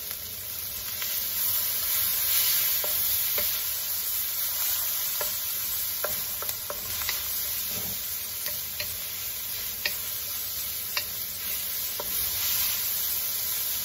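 Onion, shredded carrot and garlic sizzling in sesame oil in a wok, with a steady hiss. A wooden spatula stirs them, making scattered light clicks and scrapes against the pan.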